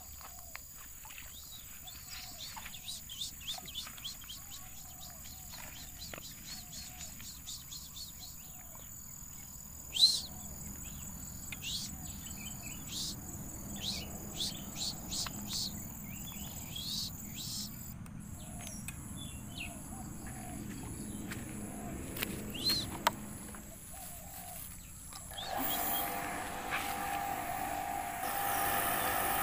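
Small birds chirping repeatedly, with one sharp tap about ten seconds in. Near the end a steady electric hum with several tones starts and grows louder: a small electric surface water pump's motor running.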